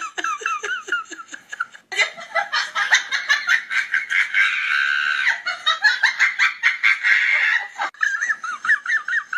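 A small child giggling in quick, high-pitched bursts. From about two seconds in the laughter turns louder and denser, and near the end the high giggles return.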